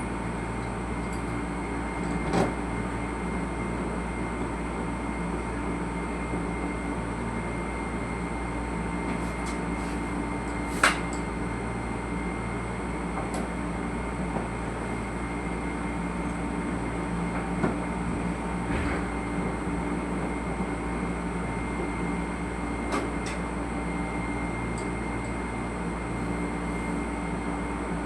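A machine running steadily, a continuous drone with several fixed humming tones, broken by a few isolated sharp clicks.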